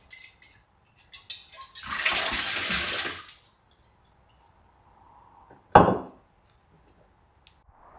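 Tap water splashing for about a second and a half as a terracotta jug is rinsed, then a single loud knock near six seconds in as the clay jug is set down on the stone countertop.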